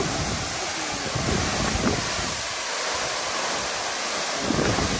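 Steady rush of a strong waterfall, with wind buffeting the microphone in gusts near the start and again near the end.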